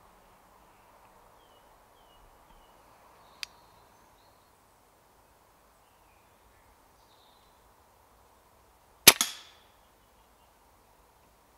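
A single shot from a Brocock Pathfinder pre-charged pneumatic air rifle about nine seconds in: one sharp crack with a quick second smack and a short tail, the pellet knocking a grey squirrel off a feeder. A small click comes earlier, about three seconds in.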